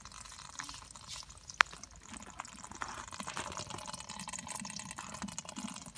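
Live freshwater field crabs scrabbling in shallow water in a bucket: legs clicking and scraping on the sides and bottom, with small splashing and trickling water sounds. One sharp click about a second and a half in stands out above the rest.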